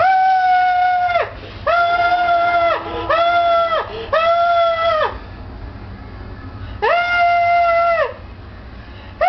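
A toy squeaker or horn honking five times at one steady pitch, each honk about a second long and sagging slightly as it ends.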